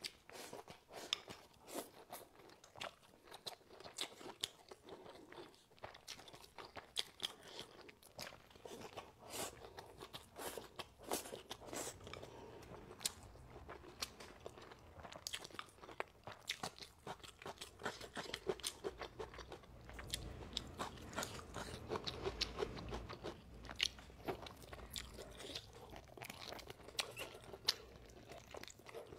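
A person eating close to a clip-on microphone: a dense, irregular run of crisp crunches and wet chewing as food is bitten and chewed, with a low rumble about twenty seconds in.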